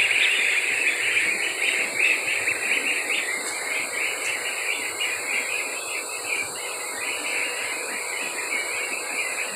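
A large flock of young waterfowl chicks peeping and calling all at once on a wire-floored brooder cage, a dense high-pitched chatter from the freshly woken birds. It thins out a little in the second half.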